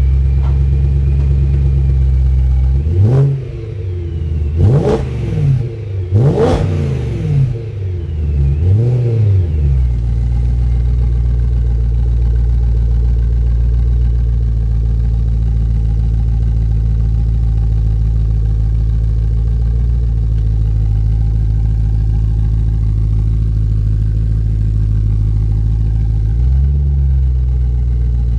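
2008 BMW E92 M3's 4.0-litre V8 heard at the tailpipe through a Megan Racing aftermarket exhaust: idling steadily, then revved in several quick blips, each rising and falling, a few seconds in, before settling back to a steady idle. There is one more brief rise near the end.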